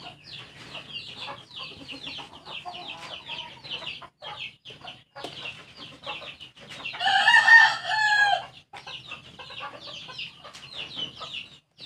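Chickens cheeping steadily in rapid, high, short chirps, with a rooster crowing once, loudly, about seven seconds in.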